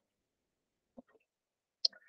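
Near silence, broken by a faint click about a second in and a sharper, louder click near the end.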